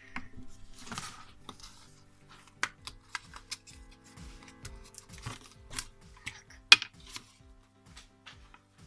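Background music under scattered sharp clicks and taps from paper being folded and handled while a paper cat's leg is glued on. The loudest click comes near the end.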